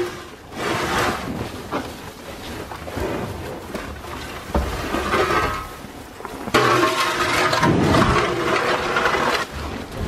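Shovel scraping and scooping on the barn floor while mucking out, in several rough scrapes, with a longer, louder scrape about two-thirds of the way through.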